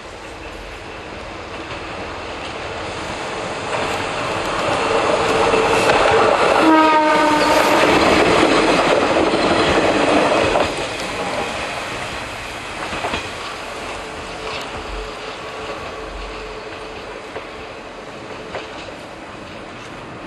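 Small electric railcar of the Eizan Electric Railway approaching, growing louder, then passing close with rail and wheel clatter before fading away. It gives one short horn blast as it nears, about six and a half seconds in.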